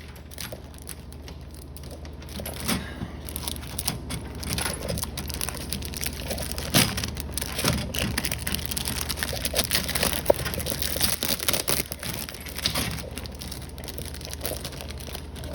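Plastic packaging crinkling and crackling as a new switch plate is worked out of it, with scattered sharp clicks and knocks from handling.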